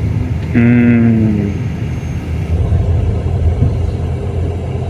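Steady low rumble of a diesel car rolling slowly, heard from inside the cabin. About half a second in, a short wordless voiced sound with a slightly falling pitch, like a hum, lasts about a second.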